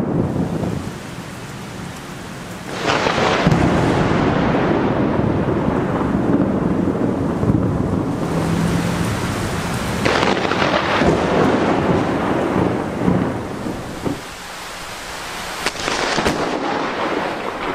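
Thunder from close lightning strikes with rain: a sharp crack about three seconds in rolls into long rumbling, a second crack comes at about ten seconds, and a third near the end.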